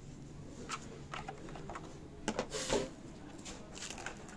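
Clear plastic packaging crinkling and clicking as it is handled: a hard plastic tray and a thin plastic bag are pulled off a portable hard drive. The crackles come in irregular bursts, loudest in a cluster about halfway through.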